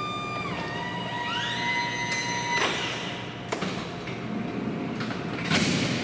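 Stryker Power-LOAD powered ambulance cot loader's electric motor whining as it lifts the cot and draws it into the ambulance, its pitch stepping down and then a second rising whine joining in. After about two and a half seconds the whine stops and gives way to mechanical rattling, a sharp click, and a louder clunk near the end as the cot settles into place.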